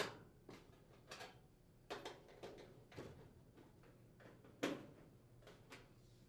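Faint clicks and taps of a hand nut driver and screws against a range's sheet-metal rear access panel as the screws are unthreaded, with sharper knocks right at the start and about four and a half seconds in.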